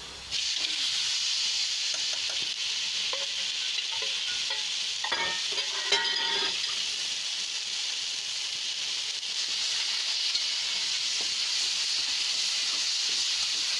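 Mawa (khoya) frying in a hot kadhai with a steady sizzling hiss while a spatula stirs and scrapes it across the pan. The scraping is busiest about five to six seconds in.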